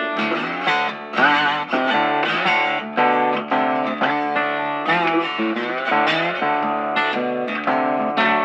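Background music led by an electric guitar, a run of plucked notes, some bent or wavering in pitch.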